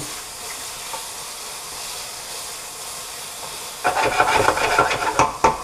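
Pieces of squid with mushrooms and garlic frying in olive oil in a saucepan, a steady sizzle while the squid is just turning colour. About four seconds in, stirring with a wooden spoon makes the sizzle louder and crackly, with scrapes and knocks of the spoon in the pan.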